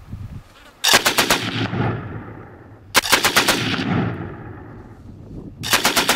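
Gunfire from a Farquhar-Hill .303 rifle: three clusters of loud cracks about two and a half seconds apart, each a rapid string of four or five sharp reports with a ringing tail.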